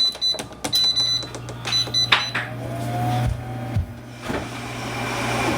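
Electronic appliance beeping several short times in the first couple of seconds, with scattered clicks, over a steady low electrical hum.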